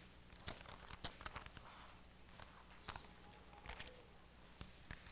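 Soft rustles and flicks of thin Bible pages being leafed through, a few scattered short sounds over near silence with a faint low hum.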